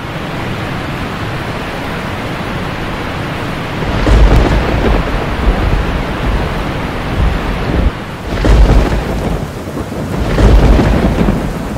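Steady rain with deep rolls of thunder, three loud rumbles about four, eight and a half and ten and a half seconds in.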